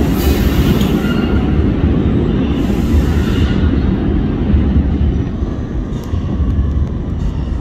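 New York City subway train running through a tunnel: a loud, steady rumble of wheels on rails. Two short bursts of hiss come through, one at the start and one about three seconds in.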